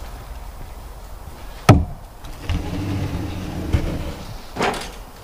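Heavy cedar cants being shifted with a pickaroon: one sharp wooden knock about a second and a half in, then the rough scraping rumble of a cant dragged across the timbers below it, and a softer knock near the end.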